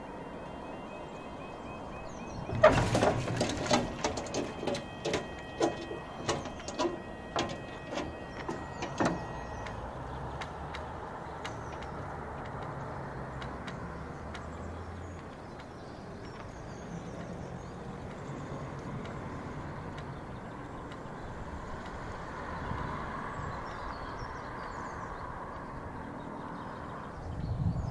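Faint, steady tones of level crossing alarms, which stop about ten seconds in. One of the alarms is faulty and gives a single tone instead of the usual two. From about three seconds in there is a loud knock, then a run of knocks about twice a second for some six seconds, and a thump near the end.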